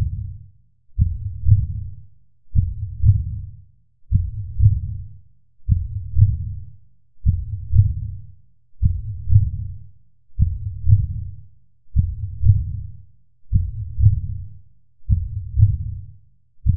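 Slow heartbeat, a deep double thump like lub-dub repeating evenly about every second and a half, each beat fading out before the next.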